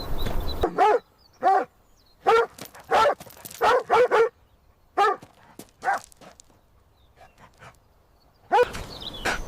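Dog barking: a run of about nine short, pitched barks over roughly five seconds, then a quiet pause with faint ticks.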